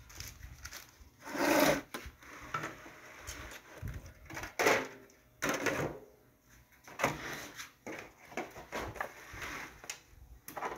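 Disposable aluminium foil pans being handled and set down, crinkling and knocking in a few separate bursts, the loudest about one and a half seconds and nearly five seconds in.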